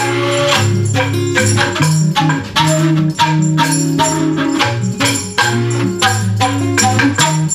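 A devil stick used as a percussion instrument: the hand sticks strike the centre stick in a quick, uneven rhythm of sharp clicks, played over acoustic guitar and flute music.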